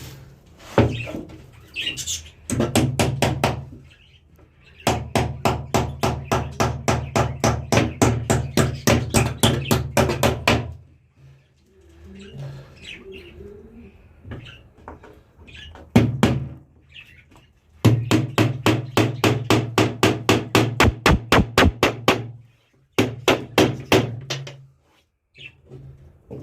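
A nail being driven with rapid hammer blows, about five a second, in several runs with short pauses between.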